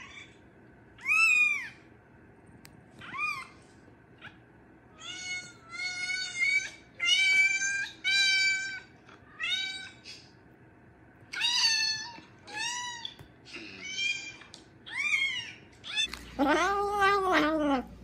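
Cat meowing: a run of short, high-pitched meows, roughly one every second. Near the end comes a longer, lower, drawn-out yowl.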